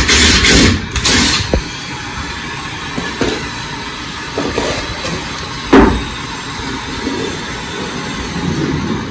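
Ryobi cordless drill driving a screw into a plywood panel in two short bursts about a second long each. About six seconds in there is a single sharp knock, over steady background noise.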